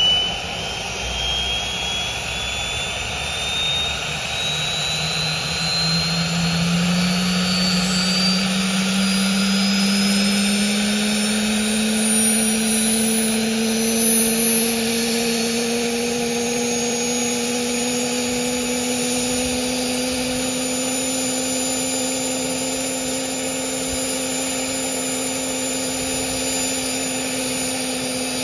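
Aérospatiale Gazelle helicopter's Turbomeca Astazou turboshaft running on the ground during start-up. It gives a steady whine that rises slowly in pitch, and a lower tone rises with it, as the engine and rotor run up.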